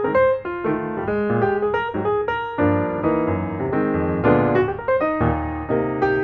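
Background instrumental piano music, a steady run of notes.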